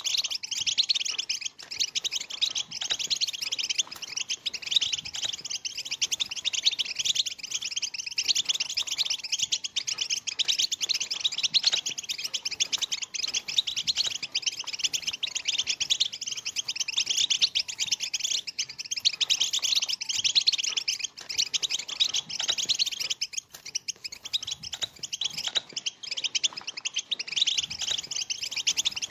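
Many European goldfinches twittering and chattering together in a dense, continuous, high-pitched babble of rapid chirps, the goldfinch 'batbata'.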